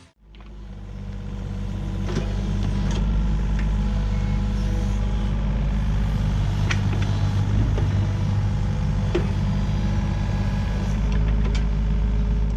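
Diesel engine of heavy equipment running steadily. It fades in over the first couple of seconds, with a few light clanks and knocks over the drone.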